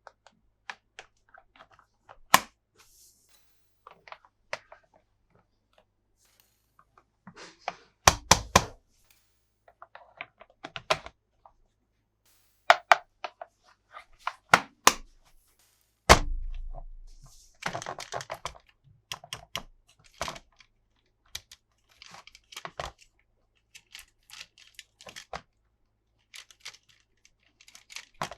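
Hands handling plastic toy parts and packaging: scattered clicks, knocks and rustling, with a cluster of hard knocks about eight seconds in and a heavy thump about sixteen seconds in.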